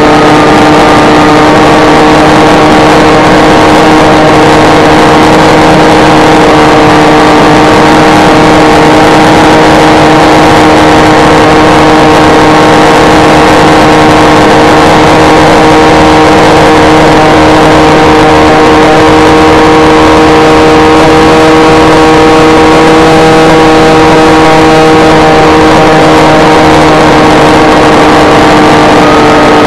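Skywalker S800 flying wing's brushless electric motor and propeller heard from the onboard camera, running a steady whine at cruise throttle over a heavy rush of wind noise. The pitch rises slightly near the end.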